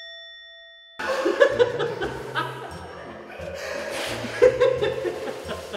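A bell-like ding rings out and fades away over the first second. Then background music with a repeating bass line comes in, with people laughing over it.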